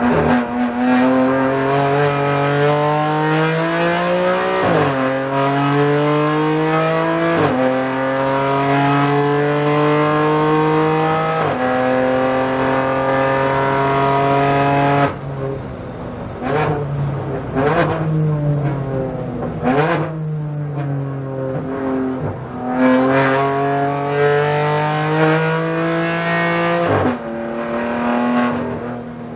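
BMW M4 GT4 race car's twin-turbo straight-six engine, heard from inside the cockpit. It accelerates hard up through the gears, with three quick upshifts in the first dozen seconds. About halfway through the driver lifts off for braking, and there are several short throttle blips on the downshifts. The engine then pulls up through the revs again, ending with another upshift near the end.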